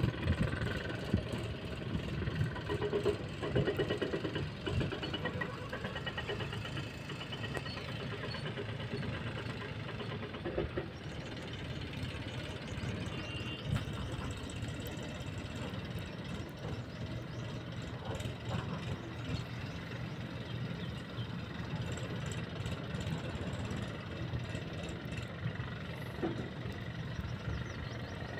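Massey Ferguson 7235 tractor's diesel engine running steadily under load as it pulls a harrow across a field.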